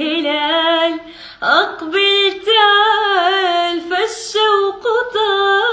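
A woman singing an Arabic Ramadan song in a melismatic style, holding long notes with a wavering vibrato and taking short breaths between phrases.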